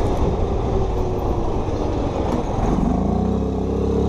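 Chinese utility ATV's engine running as it is ridden, over a low rumble of wind and tyre noise; about three seconds in the engine note climbs as it accelerates, then holds steady.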